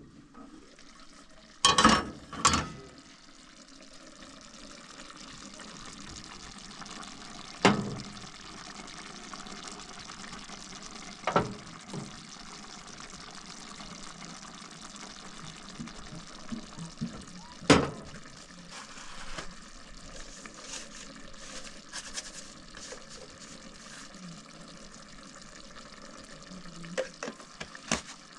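A pot of tomato sauce simmering on a gas stove with a steady bubbling hiss. About five sharp kitchen knocks stand out over it.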